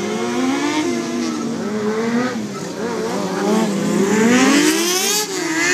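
Sport motorcycle engines revving up and down over and over during stunt riding, with a tire squealing about four to five seconds in.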